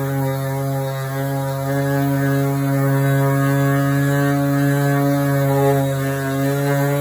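Power sander running steadily with 240-grit paper, sanding the car's body paintwork; a loud, even hum.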